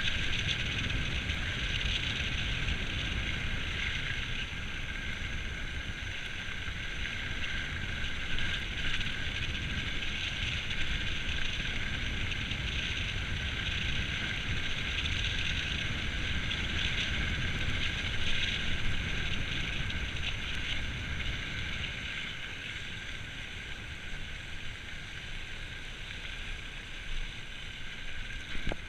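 Mountain bike descending a dirt trail: a steady rush of wind on the microphone with tyre and frame rattle, swelling and easing a little as the speed changes.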